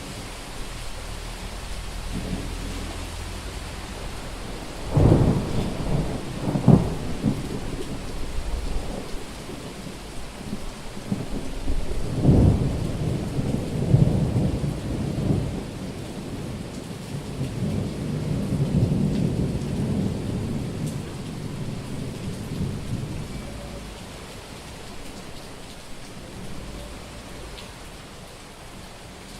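Thunderstorm: steady heavy rain with thunder. Two sharp cracks come about five and seven seconds in, and a third comes about twelve seconds in and rolls into a long rumble that dies away about ten seconds later, leaving the rain.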